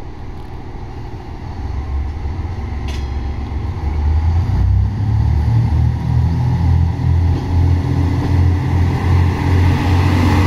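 KiHa 126/121 series diesel railcars pulling away: the engines rev up to a low, pulsing rumble that grows louder over the first four or five seconds and then holds steady. A single sharp click comes about three seconds in.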